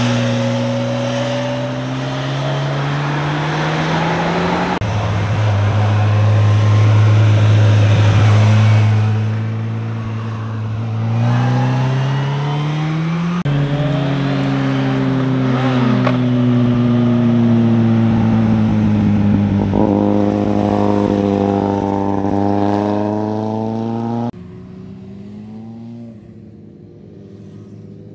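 Motorcycle engines accelerating and easing off through bends, pitch rising and falling as the bikes pass, in a few separate passes. The sound drops away sharply about 24 seconds in.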